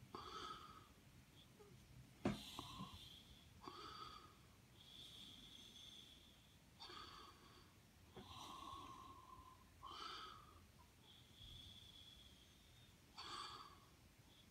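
Faint, slightly whistling breathing of a person close to the microphone: soft breaths every second or two, in and out. There is one light tap about two seconds in.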